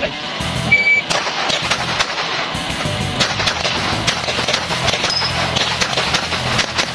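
A shot timer beeps once, a short steady tone that starts the run. A handgun then fires a string of rapid shots, the sharp reports coming in quick succession.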